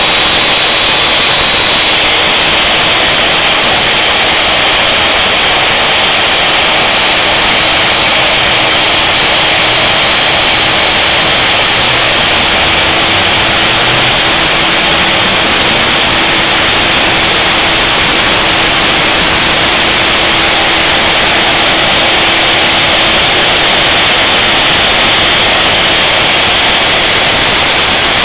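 Router motor on a CNC router table running steadily at full speed, a loud even rush of noise with a steady high whine over it.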